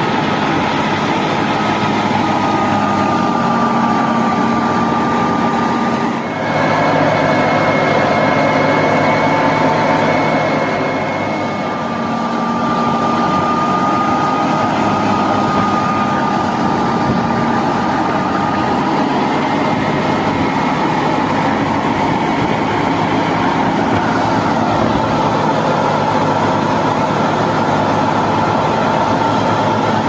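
Wheat thresher running at full speed, driven by an Al-Ghazi (Fiat 480) diesel tractor through its PTO shaft while bundles of wheat are fed in: a steady machine drone with a high, steady whine over it, dipping briefly about six seconds in.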